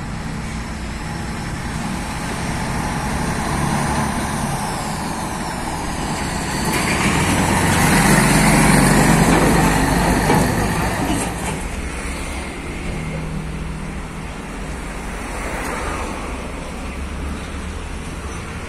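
Diesel engine of a heavy truck tractor unit pulling an empty lowboy trailer, growing louder as it approaches, passing close by about nine seconds in, then fading, with other road traffic in the background.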